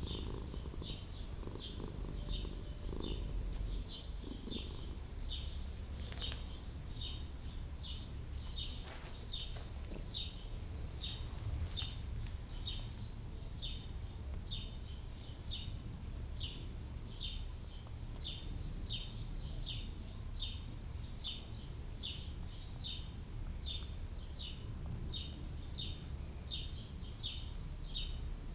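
A small bird chirping over and over, about three short chirps a second, over a steady low rumble.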